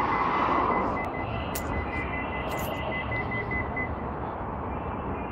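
Fast, even, high electronic beeping aboard a light-rail train, stopping about four seconds in, over the train's steady rumble; a few sharp clicks in between.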